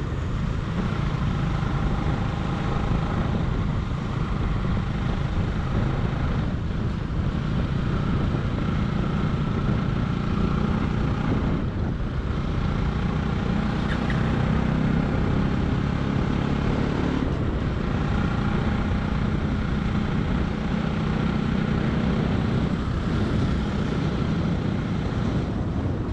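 Motorcycle running steadily while being ridden along the road, its engine blended with road and wind rush.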